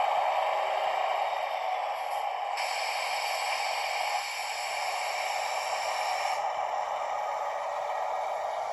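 ESU sound decoder in a Märklin DB class 218 model diesel locomotive playing its engine sound through the model's small speaker, a steady running note. A hiss joins about two and a half seconds in and lasts about four seconds.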